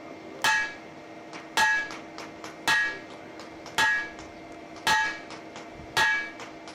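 Hammer blows on a handled top tool set on a block of red-hot steel on the anvil. There are six evenly paced strikes about a second apart, each with a short metallic ring. The hot collar stock is being driven down to shape the bottom swage.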